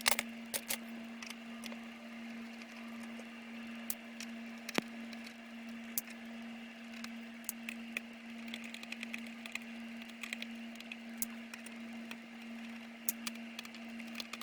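Scattered small clicks and ticks of a screwdriver and screws as the screws are undone from a laptop, over a steady low hum.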